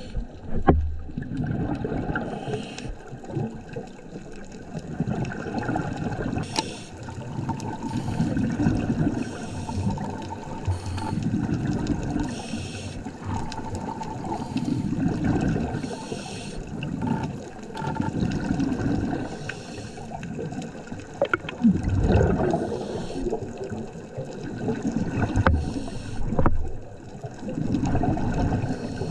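Scuba regulator exhaust bubbles heard underwater, gurgling in repeated swells a few seconds apart with each exhaled breath.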